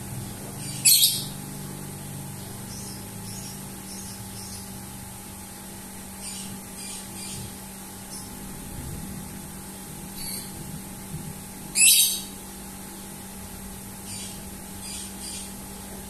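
Lovebird giving two loud, high-pitched squawks, one about a second in and another about twelve seconds in, with softer short chirps in between and near the end.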